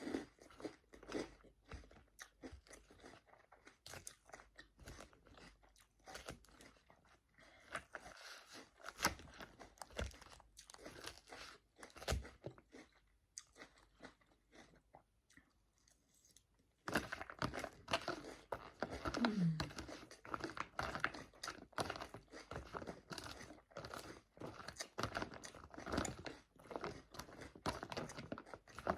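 Close-up chewing and crunching of a Caesar salad: many short, crisp crunches with mouth sounds in between. A steady background hiss comes in partway through.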